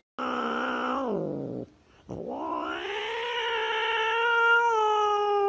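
Tabby cat yowling, a defensive threat call: a first yowl that drops in pitch at its end, then, about two seconds in, a long drawn-out yowl that rises and then holds steady.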